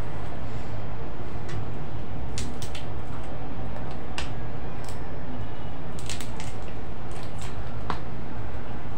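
Cooked crab being broken apart by hand: the shell and legs crack and snap sharply about a dozen times, with wet squishing as the meat is pulled out, over a steady low background rumble.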